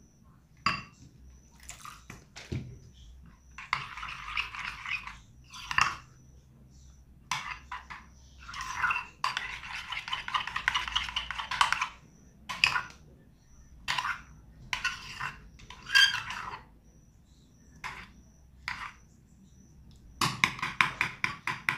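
A spoon stirring and scraping around a bowl of white-glue slime as activator is mixed in and the mix thickens. Scattered taps against the bowl alternate with runs of wet scraping, the longest a few seconds in and around the middle.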